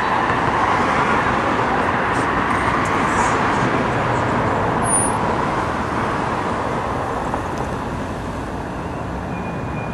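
Road traffic passing on a city street: a steady rush of car engines and tyres, a little louder in the first half and easing off toward the end.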